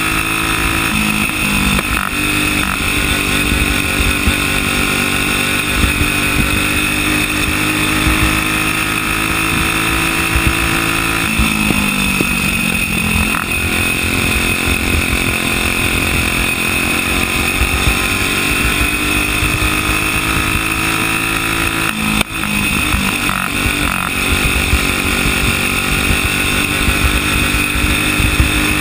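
Single-cylinder flathead racing-kart engine running hard at high revs, heard from onboard the kart. Its pitch climbs slowly on the straights and drops briefly as the kart slows for the turns, about 11 seconds in and again about 22 seconds in, then rises again.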